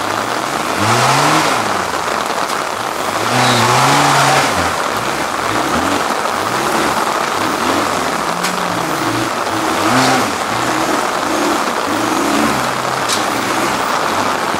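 Engine of a ProModified 4x4 trial rock crawler revving up and down over and over as it claws up a rock step, with louder surges about one, four and ten seconds in.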